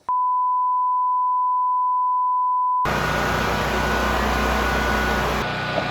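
A loud, steady, pure beep tone held for almost three seconds that cuts off abruptly. It gives way at once to a steady machine running noise with a low hum.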